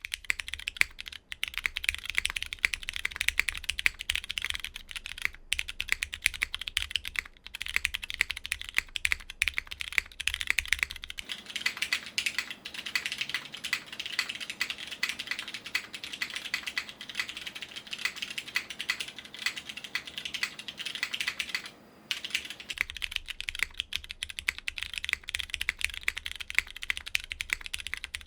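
Fast, continuous typing on a plateless Adiuvare mechanical keyboard with lubed, filmed Cherry MX Brown tactile switches and GMK Lux doubleshot ABS keycaps: a dense stream of keystroke clacks. There is a brief pause a little over three-quarters of the way through.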